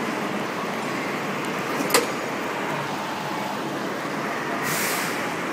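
Steady background din with a sharp click about two seconds in and a short burst of hissing near the end.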